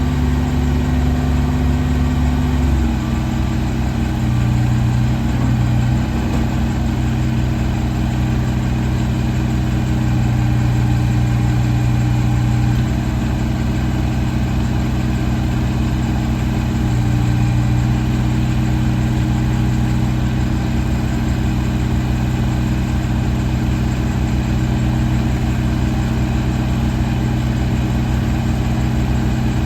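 Kubota BX24 tractor's three-cylinder diesel engine running steadily, its speed changing about three seconds in.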